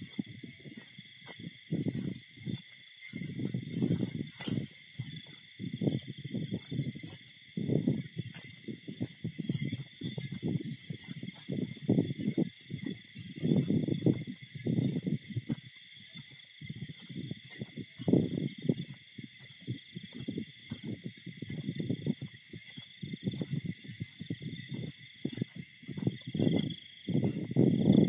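Crickets and other night insects trilling steadily at several pitches, over repeated low, muffled bursts about once a second that are the loudest sound.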